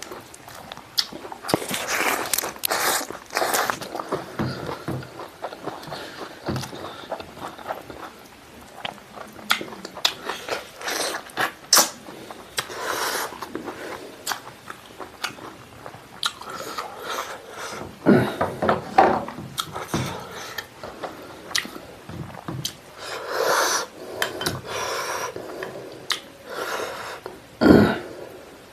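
A person chewing and biting a mouthful of pork stomach, rice and lettuce, with irregular wet mouth clicks and crunches. One louder noise comes near the end.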